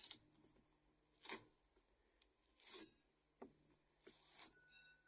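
The slit polyethylene outer jacket of an ADSS fibre-optic cable being peeled apart from the buffer tubes by hand, in three short noisy pulls about a second and a half apart.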